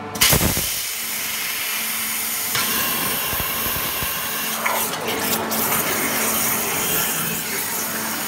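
Water jet cutter cutting 10 mm steel plate: the high-pressure jet hisses loudly and steadily, getting brighter about two and a half seconds in, over a faint steady hum.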